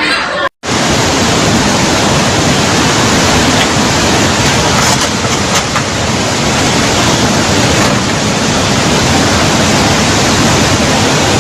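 Floodwater rushing, a loud, steady, even rush of water noise that starts abruptly about half a second in.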